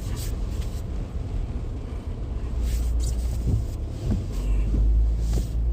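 Car cabin noise while driving on a wet road in the rain: a steady low rumble from the road and engine, with a few short swishing sounds.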